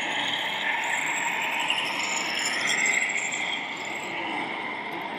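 Electric drive and gearbox of a radio-controlled model tractor running under load as it tows a trailer through dirt, a mechanical whine that rises and falls in pitch.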